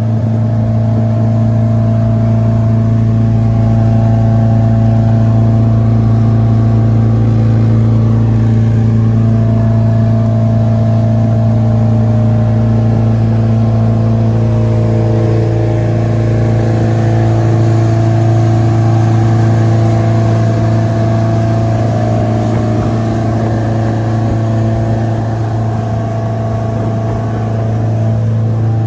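Original MerCruiser 3.0 four-cylinder sterndrive engine of a 1983 Grady White 228 Seafarer running steadily while the boat is under way, a constant low drone; the engine runs smoothly.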